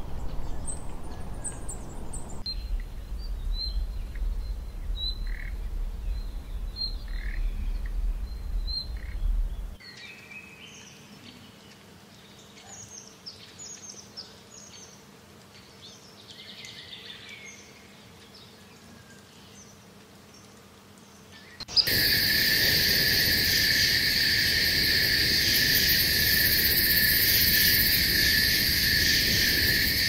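Small birds chirping: a string of short, repeated chirps over a low wind-like rumble, then softer, varied calls. About 22 s in, a loud, steady insect drone, like cicadas or crickets, suddenly takes over.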